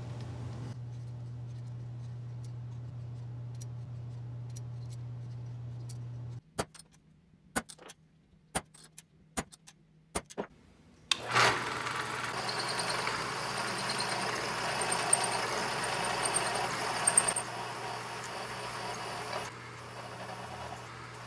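A steady low hum with faint small clicks, then about eight sharp hammer taps on a centre punch marking steel T-nuts. Then a drill press starts drilling into a steel T-nut, an even grinding of bit on metal, and stops cutting near the end while the spindle keeps running.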